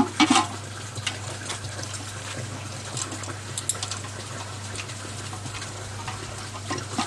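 Plastic multi-pin wiring connectors of an e-bike motor controller being handled and pushed together: a scattering of small clicks, loudest right at the start, over a steady hiss and low hum.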